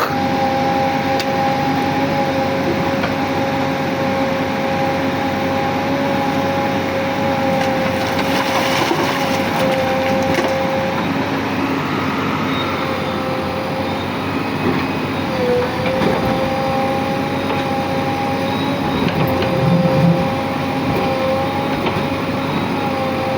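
JCB 3DX backhoe loader running steadily under work, its diesel engine and hydraulics giving a constant high whine over mechanical noise, with a few low knocks near the end.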